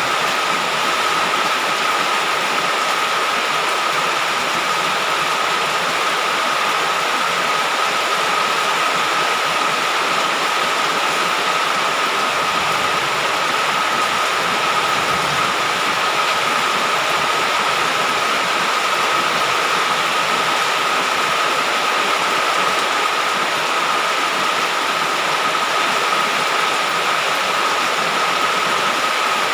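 Heavy rain falling steadily, an even unbroken hiss, with a thin steady high tone running through it.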